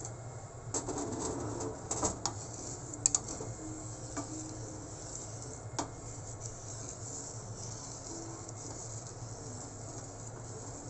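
Wooden spatula stirring annatto seeds in warm oil in a nonstick frying pan, scraping with a few sharp taps against the pan, over a low steady hum. The seeds are being steeped to make annatto oil.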